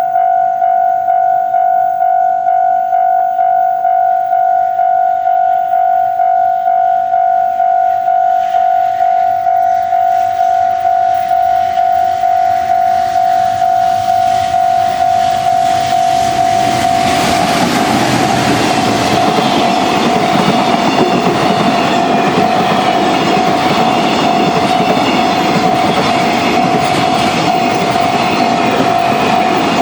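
Japanese level-crossing alarm bell ringing in a steady rhythm as an EF200 electric locomotive with a container freight train approaches. The train passes loudly from about 17 seconds in, its wheels clattering over the rail joints, with the crossing bell ringing on through it.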